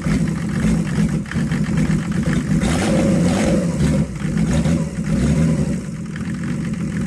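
Mercedes-Benz OM606 3.0-litre inline-six diesel running on an engine stand with no ECU, its speed set by hand at the EDC injection pump's fuel rack. The revs rise and fall, then settle lower from about six seconds in.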